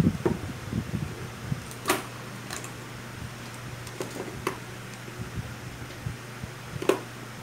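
Light handling clicks and knocks on a workbench as a small transformer is set down and a soldering iron is lifted from its stand. A steady low hum runs underneath.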